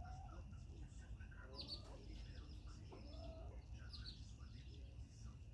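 Chickens clucking softly, with a few short high chirps and a curved call about three seconds in, over a low steady rumble.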